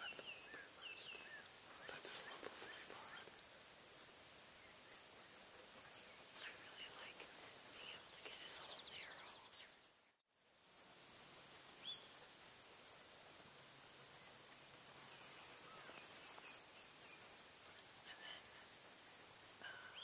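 Steady high-pitched insect chorus, with a few short bird chirps in the first half; the sound cuts out briefly about halfway through and resumes.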